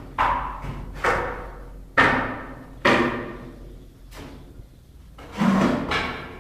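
A series of sharp knocks, four about a second apart and a fifth near the end, each ringing on briefly.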